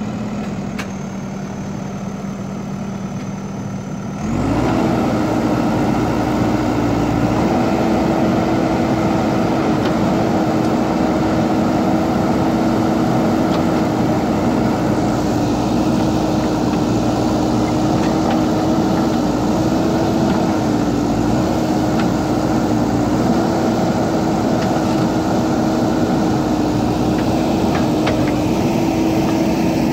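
Diesel engine of a JCB backhoe loader idling, then speeding up quickly about four seconds in and running louder at a steady higher pitch, with small dips, as it works.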